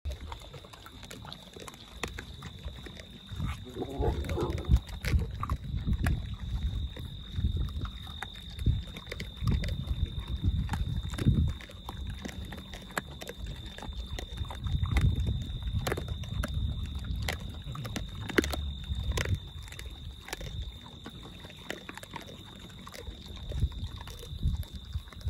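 Peccaries chewing and crunching dried corn kernels, with many sharp crunches and low grunting, and a short higher-pitched call about four seconds in. A steady high-pitched tone runs underneath.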